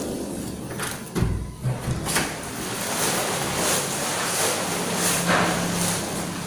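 Wind buffeting the handheld camera's microphone as a steady rushing noise, with a low thump and a few knocks a little over a second in.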